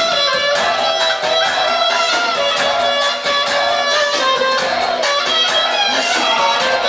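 Instrumental music, a guitar-like plucked string instrument playing a quick melody with sliding, bending notes over a steady accompaniment.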